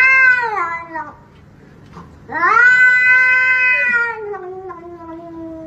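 A cat yowling in two long drawn-out calls. The first bends down and fades about a second in. The second rises, is held for about two seconds, then sinks and cuts off abruptly.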